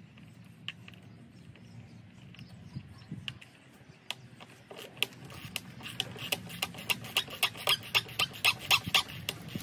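A run of sharp clicks or taps: a few scattered ones at first, then from about halfway through a quick series of roughly four a second, getting louder.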